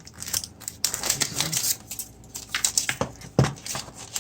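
Cardboard and paper packaging being handled and pulled apart as headphones are unpacked: a quick run of rustles, scrapes and light taps.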